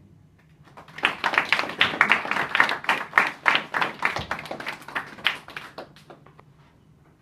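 A small audience clapping: a dense patter of claps starts about a second in and tapers off over the last couple of seconds.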